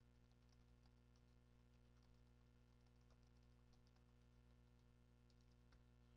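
Faint typing on a computer keyboard: soft, irregular key clicks over a low, steady hum.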